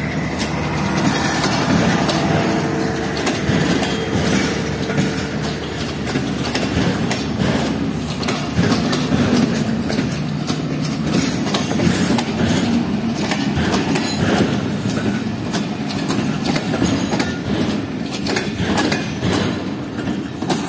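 Passenger train coaches rolling past close by, a steady rumble with repeated wheel clicks over the rail joints.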